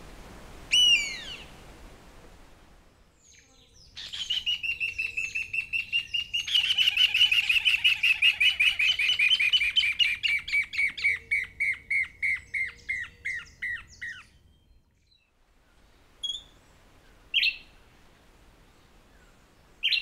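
Pale-legged Hornero pair duetting: a long, fast series of loud, ringing notes that slowly drops in pitch and grows denser about two seconds in, lasting about ten seconds. Near the start there is a single downward-sliding call of a Gray-lined Hawk, and a few short notes come near the end.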